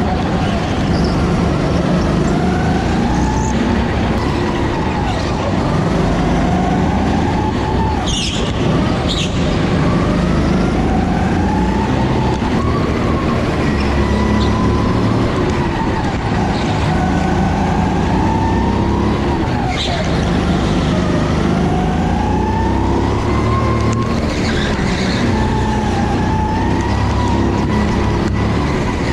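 Go-kart engine at full throttle on a lap, its pitch climbing along each straight and dropping off for the corners, over and over. Twice a brief high squeal cuts through.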